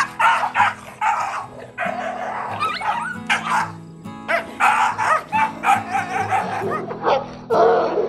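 A pack of dogs snarling and barking in a scuffle over food, in quick harsh bursts with a few short rising yelps. Background music runs underneath.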